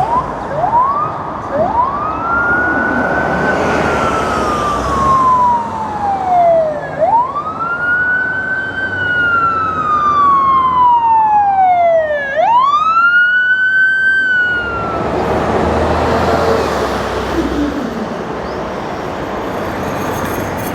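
Emergency vehicle siren on a city street: a few quick rising whoops, then a slow wail that climbs and falls three times before stopping about fifteen seconds in, with traffic noise throughout.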